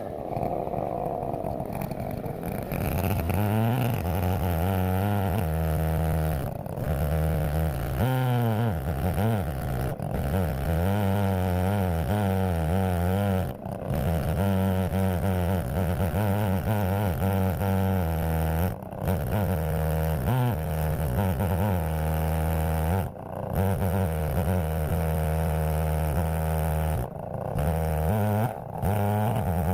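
A two-stroke chainsaw, a Holzfforma clone of the Stihl 070, running hard under load as it rips a cherry log into boards on an Alaskan chainsaw mill with a 36-inch bar. The engine note wavers, with a few brief dips along the way.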